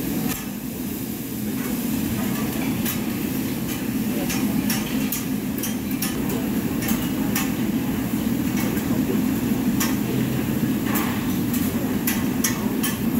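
Metal spatula scraping and clanking on a large round flat-top griddle as vegetables are stir-fried: many sharp knocks and scrapes at an uneven pace over a steady low background roar.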